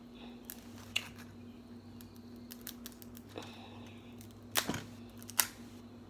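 A few scattered sharp clicks and cracks, the loudest a little past halfway, as king crab legs are handled and broken open, over a faint steady hum.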